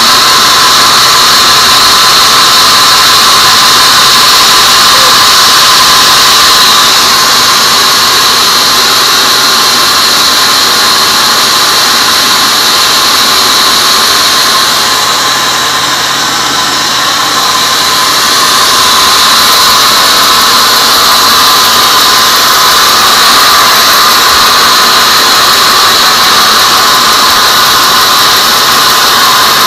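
Band sawmill blade ripping a large teak beam, a loud steady high-pitched whine of the saw cutting through the wood. It eases slightly for a few seconds about halfway through, then holds steady again.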